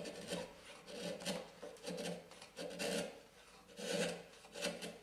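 Hand-held wood chisel paring thin shavings from a board: a run of short scraping, slicing strokes, about one a second, each driven by the body rocking forward.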